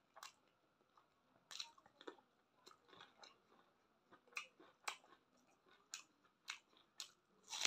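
Faint, close-up eating sounds: a person chewing food, with short wet smacks and clicks at irregular intervals.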